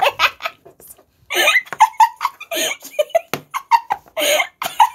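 Giggling laughter: a run of short, high-pitched bursts of laughing, with a brief lull about a second in.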